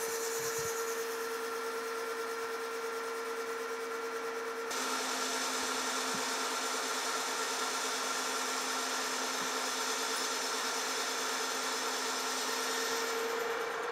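Metal lathe turning down the outside diameter of a metal gear blank, a cut of about a tenth of an inch, with a steady hum and the hiss of the tool cutting. About five seconds in the hiss grows stronger, and it eases near the end.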